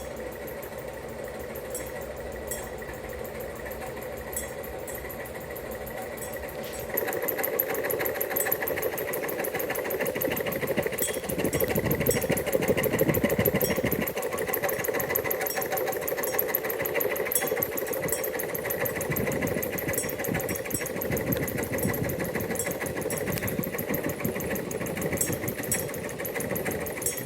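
Hampton Bay Glendale ceiling fan with 42-inch Littleton blades spinning fast: a steady motor hum with a rapid, even ticking from the spinning blades. About seven seconds in it gets louder and stays louder.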